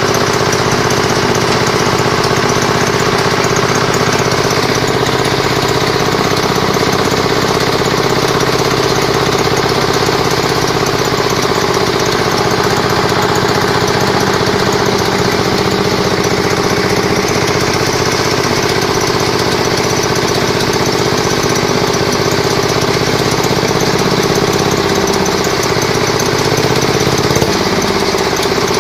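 Engine-driven 350-litre pan concrete mixer running steadily, its engine giving a constant chugging drone while the paddles turn through the sand-cement mix. The engine note wavers briefly near the end.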